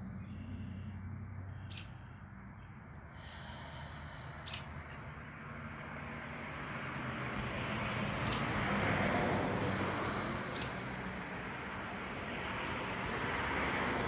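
Slow, deep breaths that swell and fade, with a bird's single short chirp repeated every two to three seconds and a faint low hum underneath.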